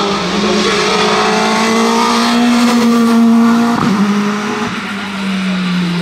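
Renault Laguna BTCC touring car's naturally aspirated 2-litre four-cylinder racing engine at high revs, its pitch climbing under acceleration. It breaks off sharply with a gear change about four seconds in, then carries on at lower revs that slowly ease off.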